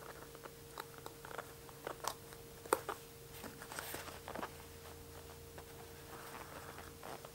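Quiet hand-sewing sounds: small clicks and rustles as pliers grip a curved needle and draw it and the thread through the fabric. The clicks come mostly in the first half, the sharpest about three seconds in, over a faint steady hum.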